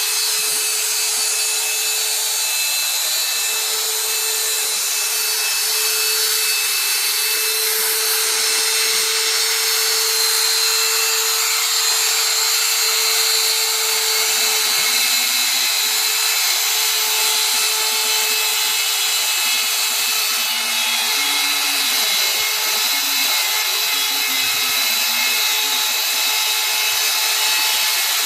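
CNC engraving router's spindle running steadily with a constant high whine while the machine cuts a profile toolpath.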